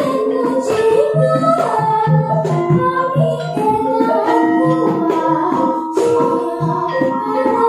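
Javanese gamelan (karawitan) played by a children's ensemble: a girl sinden sings a held, ornamented vocal line into a microphone over the bronze kettle gongs of the bonang and strokes of the kendang drum.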